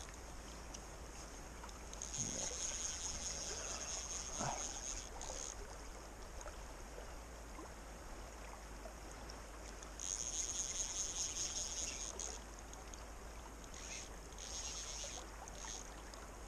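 Fly reel's clicker ratcheting in three bursts of a few seconds each as line is wound onto the reel with a heavy trout on. The creek runs steadily underneath.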